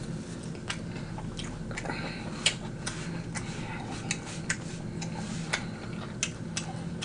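Wet mouth clicks and smacks of a person chewing a mouthful of egg roll with his mouth closed, irregular, a click or two a second, close to the microphone. A steady low hum runs underneath.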